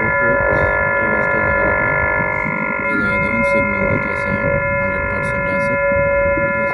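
Underground cable locator giving its detection tone: a steady electronic tone of several stacked pitches, sounding as the unit registers a strong signal, with a short break about three seconds in. A low rumbling background runs underneath.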